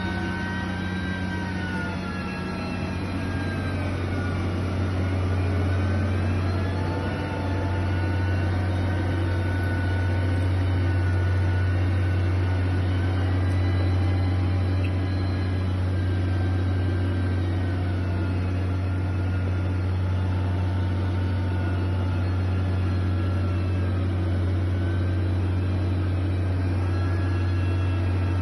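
Heavy construction machine's diesel engine running steadily, a deep drone with a pitch that rises and falls slightly as the revs vary.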